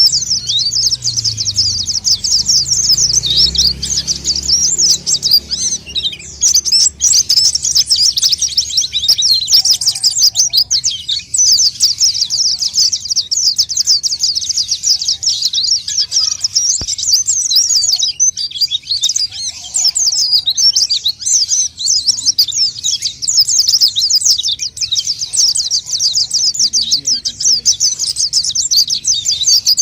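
White-eye (pleci) singing continuously in a fast, high-pitched chattering stream of chirps, with only brief lulls. This is the vigorous 'gacor' song played as a lure call to attract wild white-eyes.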